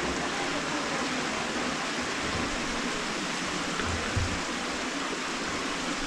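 Steady rush of fast-running mountain water, a waterfall and canyon stream.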